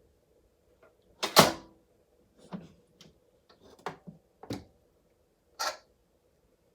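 Several separate knocks and clatters, the loudest a little over a second in and a longer scraping one near the end, from handling a multicooker and kitchen utensils.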